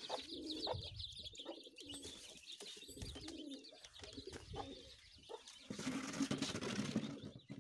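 Domestic pigeons cooing in low, repeated calls, with high peeping from young chicks near the start. A louder rustling noise comes about six seconds in.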